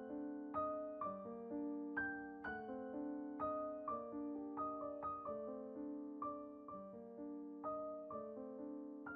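Background music: a slow, gentle piano piece, single notes and chords struck about twice a second, each ringing and fading.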